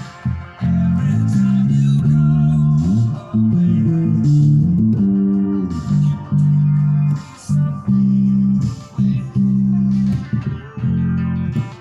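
Music led by plucked guitar over a strong bass line, with held low notes changing every second or so.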